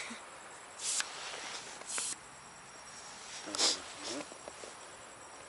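Short hisses of air from a fat-bike tyre's opened valve, three brief bursts.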